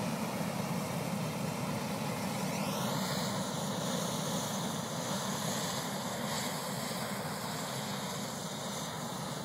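A hot-air balloon's propane burner firing in one long, steady rush, heating the envelope to lift a heavily loaded basket off the ground. From about three seconds in, the rush takes on a hollow, sweeping tone.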